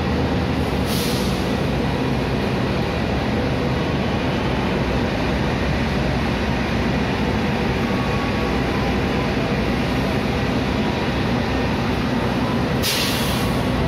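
CC 300 diesel-hydraulic locomotive's engine running with a steady hum as the locomotive rolls slowly past. Two brief hisses come through, one about a second in and a longer one near the end.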